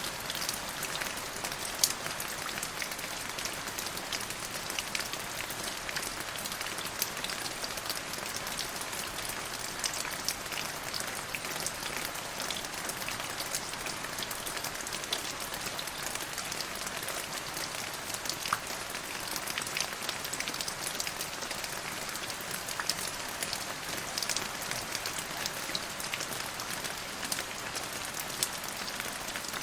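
Steady rain falling on a hard surface, a continuous hiss with many individual drops pattering and ticking throughout.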